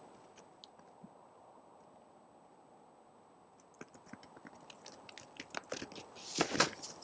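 A moose right at the trail camera making crunching sounds: only faint hiss for the first three and a half seconds, then a run of small crunches and clicks, the loudest near the end.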